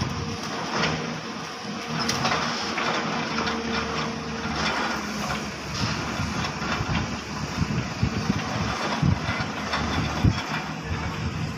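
Excavator diesel engines running steadily with a hydraulic hum. Irregular low thuds and knocks come in during the second half.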